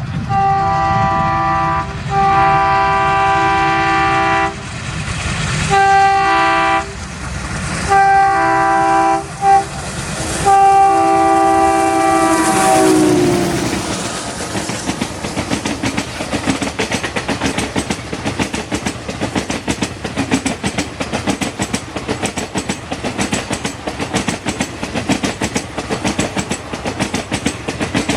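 Passing train's multi-tone horn sounded in about five blasts, the last one long and dropping in pitch as the locomotive goes by. The horn is followed by a steady rapid clickety-clack of the coaches' wheels running over rail joints.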